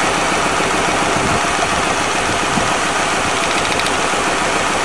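1997 Lincoln Continental's V8 idling rough with a pulsing miss, with the plug wire pulled off one of its firing cylinders at the coil pack. The miss itself comes from cylinder number two, whose plug wire has burnt through and is arcing out.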